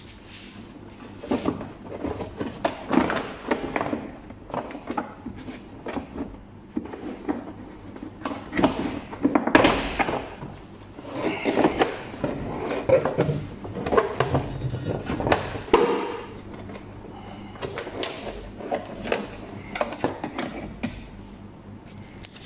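Stiff plastic front wheel arch liner of a Renault Captur being pried and bent out of the wheel well by hand: irregular scraping, rubbing and knocking of plastic against the body and suspension.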